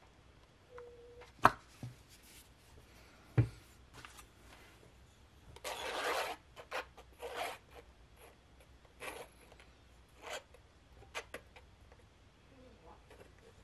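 Palette knife scraping and spreading acrylic paint across a canvas in a run of short strokes, the longest about six seconds in. Before that, two sharp knocks in the first few seconds.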